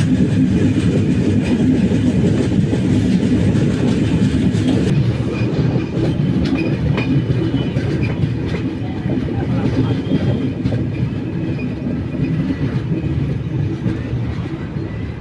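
Passenger train coaches running on the rails, heard from the open doorway: a steady loud wheel rumble with the clickety-clack of the rails, easing off somewhat toward the end.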